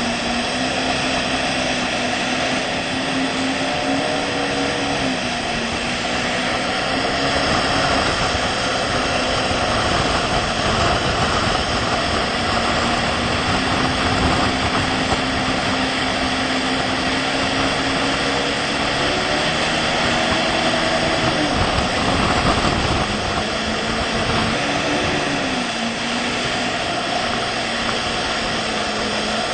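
Motorboat engine running at speed while towing an inflatable tube, its pitch rising and sagging a few times, over a steady rush of wake water.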